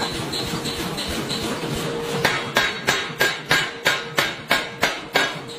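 Pneumatic forging hammer striking red-hot steel on the die. About two seconds in, it delivers a fast run of about ten ringing blows, roughly three a second, over a steady machine hum.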